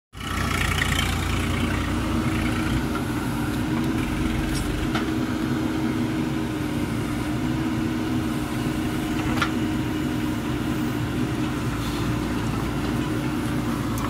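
JCB 3DX backhoe loader's diesel engine running steadily as the backhoe bucket digs into a heap of soil and gravel, with a couple of sharp knocks, one about five seconds in and one about nine seconds in.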